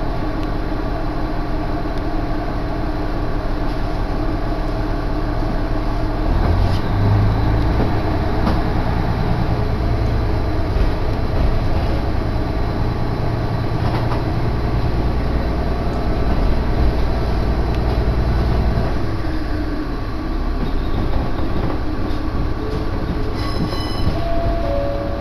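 Diesel railcar running, with a steady engine drone and rail noise. About six seconds in the engine note grows louder and deeper, as when the railcar throttles up to pull away, and it eases off again near nineteen seconds.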